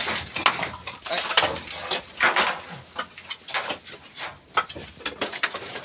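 Loose scraps of firewood knocking and clattering irregularly as a woodpile is disturbed.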